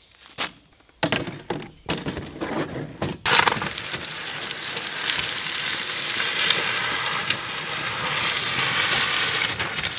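Knocks and clatter of plastic containers being set out and handled on a folding table, then a steady rushing noise from about three seconds in.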